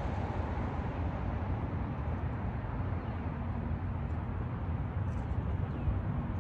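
Wind blowing across the microphone: a steady low rumble.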